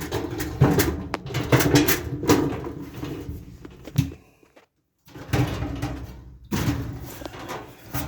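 Sheet-metal appliance parts clanking, knocking and scraping as they are handled and fitted during reassembly of a dryer. The run of knocks breaks off about four and a half seconds in, then resumes half a second later.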